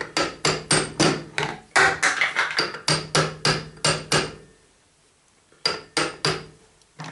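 Hammer blows on steel parts of a Babetta moped engine at the sprocket and shaft: a quick series of sharp, ringing strikes, about three a second, then a pause and three more near the end.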